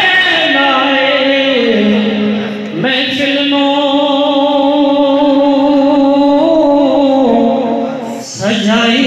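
A male voice singing a naat in long, drawn-out held notes that slide slowly from pitch to pitch, breaking briefly for breath about three seconds in and again near the end.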